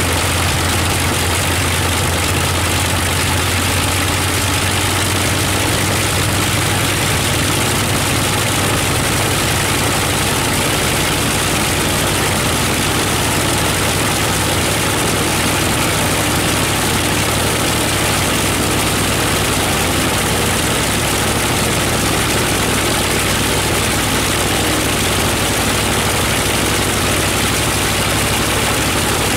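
Bristol Hercules 14-cylinder sleeve-valve radial engine running steadily on a ground run, turning its propeller. A loud, even engine note with propeller noise.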